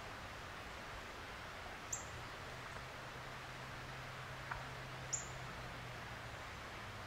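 A small bird giving short, very high chip calls, twice, a few seconds apart, over faint woodland hiss and a low steady hum.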